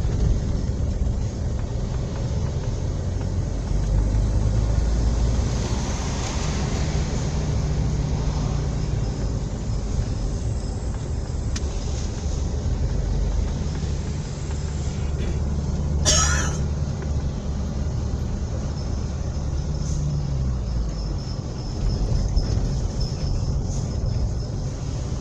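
Road vehicle running along at speed, heard from inside its cabin: steady engine and tyre noise, the engine note shifting a few times. About two-thirds of the way in comes a brief, sharp burst of noise.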